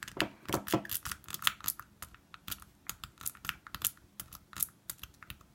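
Rapid, irregular metallic clicking and scraping of an S-rake being worked in and out of a wafer lock's keyway against a tension wrench, the wafers snapping as the pick drags over them; the lock does not open.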